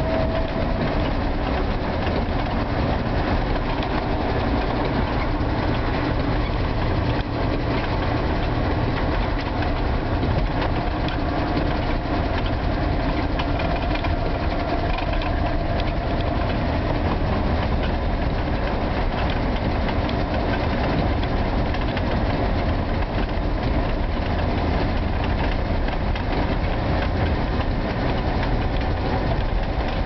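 Steady noise of a car driving on a snow-covered road, heard from inside the cabin: engine and tyre rumble with no break.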